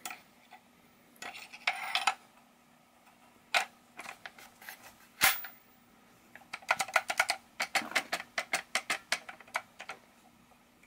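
M7 bayonet being fitted onto an M16A1 rifle: metal-on-metal clinks and scrapes as the steel muzzle ring and grip meet the flash hider and bayonet lug. There is one sharp click about five seconds in, then a quick run of light clicks, about six a second, for some three seconds.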